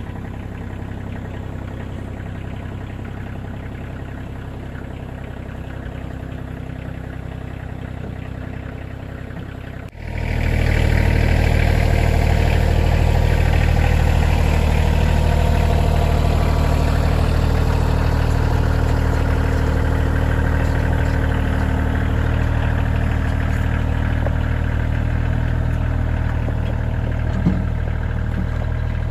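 Kioti CK2610 compact tractor's three-cylinder diesel engine running steadily at low speed while it moves a log splitter around. About ten seconds in it becomes much louder and closer, with a deep, even drone.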